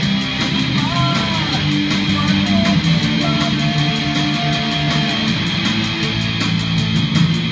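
Electric guitar played through a small amplifier in a rock/heavy-metal style, with sustained low notes under a lead line whose notes bend in pitch, one of them held for a couple of seconds in the middle.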